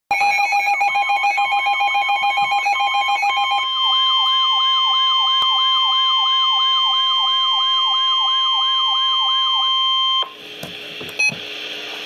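NOAA weather alert radio sounding a warning alarm: fast beeping for the first few seconds, then a steady high tone with a siren-like warble sweeping up and down about three times a second. It cuts off suddenly about ten seconds in, leaving faint radio hiss and a click.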